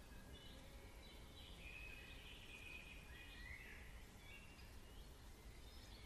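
Faint birdsong: several short whistles and chirps from small birds, over a steady low rumble of background noise.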